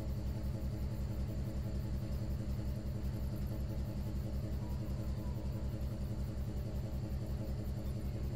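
Ship's engine running: a steady low drone with a fast, even throb.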